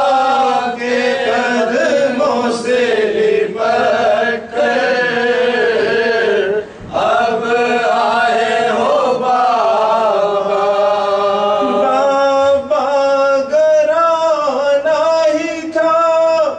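Male voice chanting a marsiya, an Urdu elegy, in long, drawn-out melodic lines, with one short pause for breath about seven seconds in.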